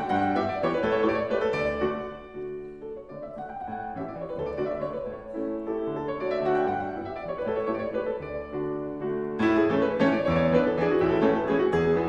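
Background piano music, a gentle classical-style piece that softens for a few seconds and swells back fuller about nine seconds in.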